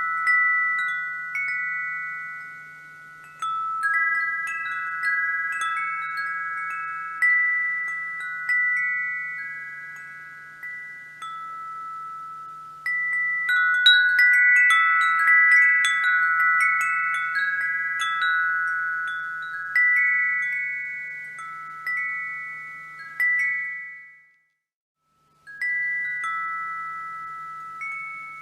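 Wind chimes ringing: irregular strikes of several high, bell-like tones that overlap and slowly fade, busiest around the middle. About 24 seconds in the sound cuts out to silence for about a second and a half, then the chimes resume.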